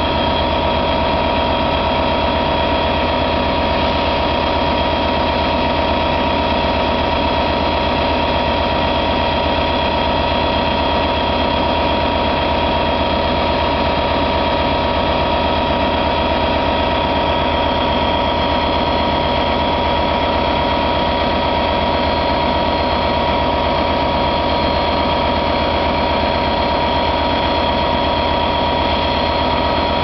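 Class 66 diesel-electric locomotive's two-stroke V12 diesel engine idling steadily at a standstill. A constant engine note carries a steady high whine over it, with no rise or fall in speed.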